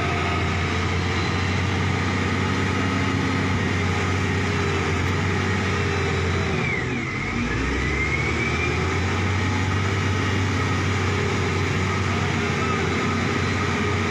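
Heavy construction machine's diesel engine running steadily. About halfway through, its pitch dips briefly and climbs back as the revs drop and pick up again.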